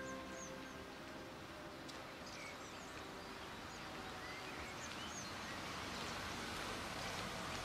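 Birds chirping over steady outdoor background noise, while a BMW 5 Series car drives up the street, its engine and tyres growing gradually louder toward the end.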